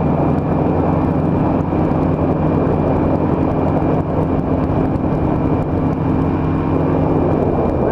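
Powered parachute's engine and pusher propeller running steadily in flight: an even drone with a broad rush of air over it.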